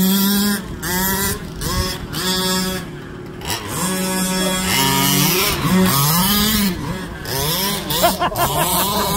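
Small two-stroke petrol engines of 1/5-scale RC cars, revving up and down as the throttle is worked on and off. About halfway through, two engine pitches rise and fall across each other.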